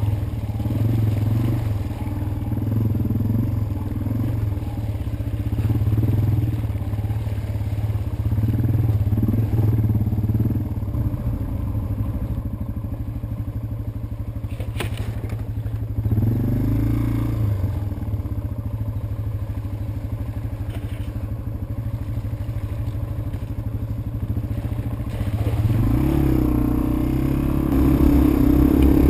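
Yamaha TW200's single-cylinder four-stroke engine running as the motorcycle rides a dirt trail, heard from the handlebars. The engine note rises briefly about halfway through and climbs again, louder, near the end as the bike speeds up.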